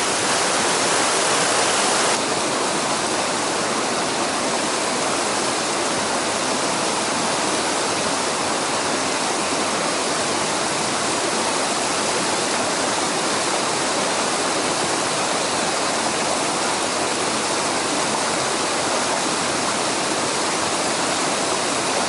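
Mountain stream rushing over rocks and small cascades, a steady dense roar of water. About two seconds in it drops slightly in level and then holds steady.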